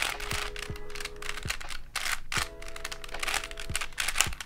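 Plastic layers of a 5x5x4 cuboid twisty puzzle being turned by hand through the moves of a U-perm algorithm: a run of quick clicks and clacks as the layers turn.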